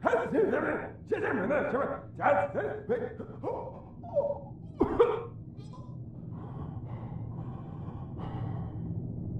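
Cartoon characters' wordless vocal noises: a run of short gasps and exclamations, with one sharp rising cry about five seconds in, then a quieter steady low hum.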